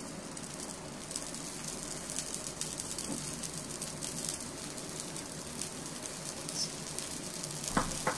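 Steady low sizzle of a bread slice toasting in ghee in a nonstick pan over a low gas flame, with two short clicks near the end.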